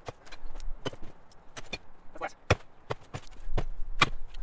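Irregular sharp clicks and knocks as litter is handled and picked up.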